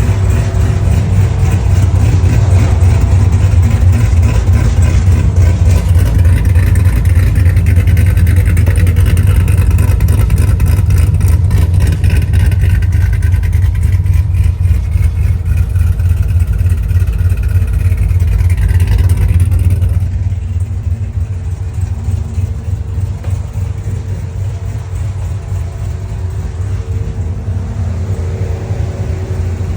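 Sierra pickup's engine running, with a heavy low rumble; the sound drops noticeably in level about twenty seconds in.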